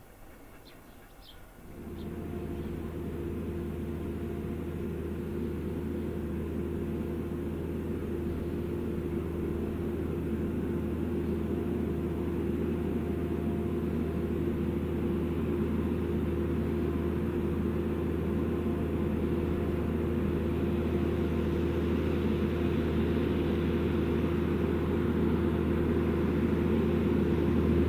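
Same Fortis 160 tractor engine pulling a five-furrow plough, a steady drone that sets in suddenly about two seconds in and grows slowly louder. A few bird chirps are heard just before it.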